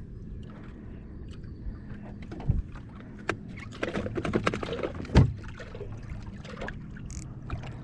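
Small boat rocking on choppy water: water sloshing against the hull, with a few hollow knocks, the loudest about five seconds in, over a low steady hum.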